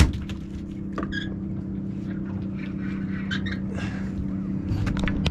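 Boat engine idling with a steady low hum, with a sharp knock at the start and scattered light clicks and knocks over it.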